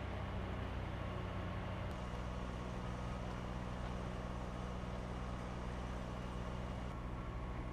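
Fire engine's engine idling with a steady low hum. The pitch of the hum shifts slightly about two seconds in and again near the end.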